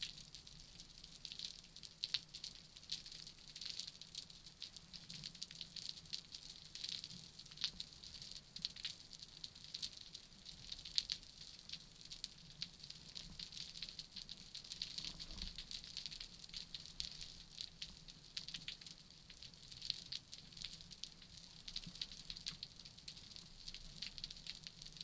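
Faint underwater crackle of a rocky reef, dense scattered tiny clicks typical of snapping shrimp, heard through an underwater camera housing over a faint low hum.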